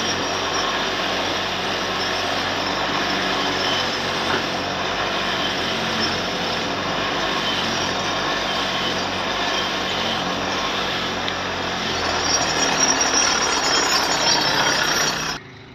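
A power tool running steadily as the rusted threads of a tractor engine head bolt are cleaned against it. It cuts off abruptly near the end.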